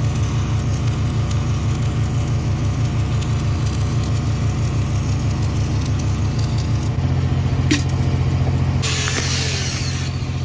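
Stick-welding arc from a 7018 electrode, crackling and hissing steadily over the constant low hum of an engine-driven welder. The hiss grows louder for about a second near the end.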